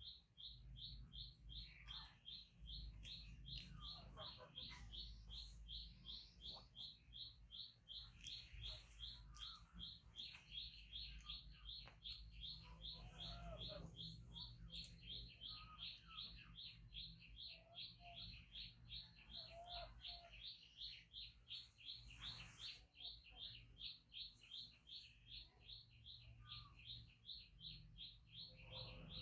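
Faint high-pitched chirping, repeated very evenly about three times a second, over a low steady hum.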